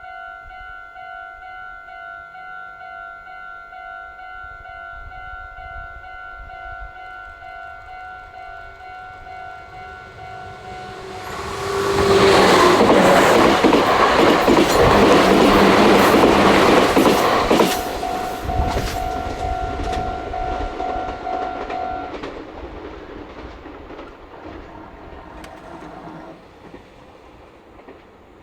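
Level-crossing alarm ringing its steady repeating electronic bell while a Meitetsu electric train passes over the crossing. The rush and rail clatter of the passing train builds in about 11 seconds in and is loudest for about six seconds, then fades. The bell stops a few seconds after the train has gone.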